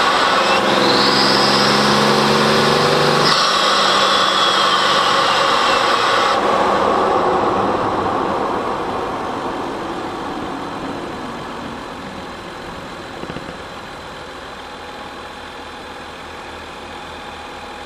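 Engine intake noise picked up from inside the airbox: loud under throttle with a rising whine, broken off about three seconds in, then dying away over several seconds as the vehicle slows, settling to a low steady idle.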